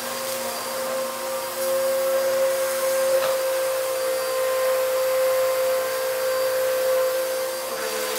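Bissell upright vacuum cleaner running on a carpet mat with a steady motor whine, broken by a few faint ticks; the whine shifts slightly in pitch near the end.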